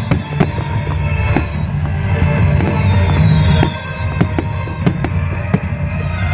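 Fireworks display: shells bursting overhead, a dozen or so sharp bangs and crackles at irregular intervals, with music playing underneath.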